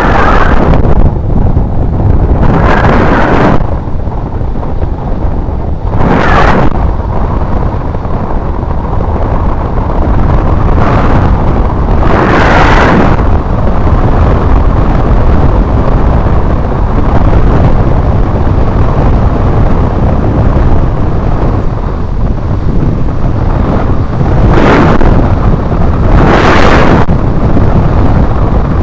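Wind buffeting the camera microphone on a mountain bike riding fast on an asphalt road: a loud, steady low rumble that swells in several stronger gusts.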